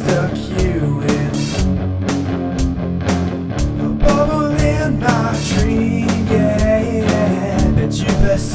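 Grunge-style alternative rock song playing: electric guitar, bass and drum kit, with a steady beat of drum hits.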